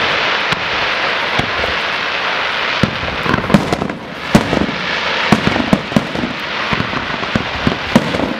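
Fireworks display: shells bursting with sharp bangs over a steady hiss. The bangs come a few at a time at first, then several a second from about three seconds in.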